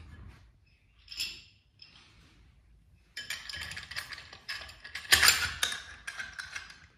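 Clicks, knocks and clattering of an eFoil outboard converter housing being handled and fitted onto the mast. Mostly quiet at first with one short rattle about a second in, then a run of sharp clicks and knocks from about three seconds in, the loudest just past five seconds.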